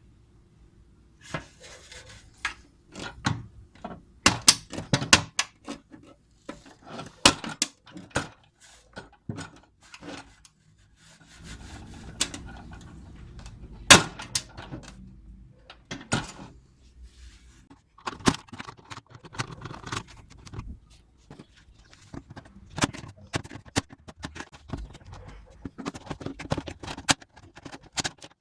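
Irregular metal clicks, clanks and knocks as an old, rusty steel tool box is handled, with a brief stretch of scraping noise about halfway through.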